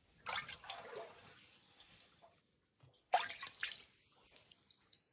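Water dripping and splashing in a rock cave, with two louder splashes about three seconds apart and a few faint drips between them.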